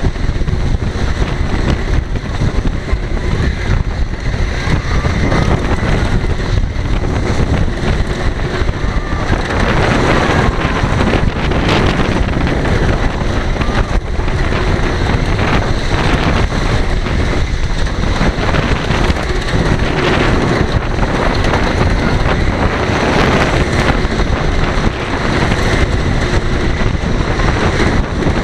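Great Coasters International wooden roller coaster train running over its wooden track at speed, with a steady rattling rumble from the wheels. Heavy wind buffets the microphone throughout.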